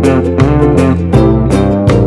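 Background music with a steady beat of plucked notes.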